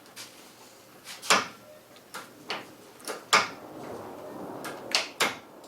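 Pro 5.0 short shifter clicking and clunking as it is worked, about ten sharp knocks at irregular spacing, several coming in quick pairs.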